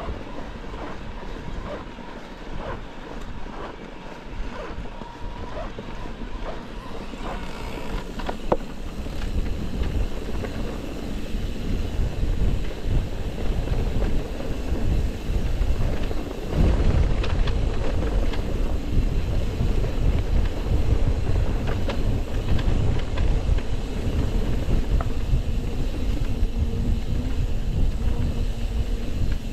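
Wind buffeting the microphone and tyre rumble as an electric mountain bike is ridden, turning louder and rougher about eight seconds in. Light, regular ticking in the first few seconds.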